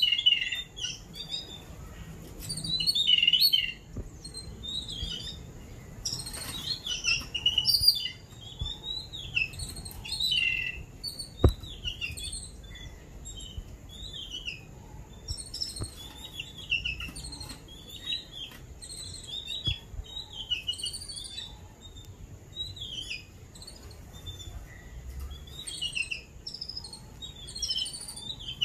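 A group of babblers calling at close range: a steady run of short, high, chattering chirps from the adults and their caged chicks, with louder bursts now and then and a few faint knocks.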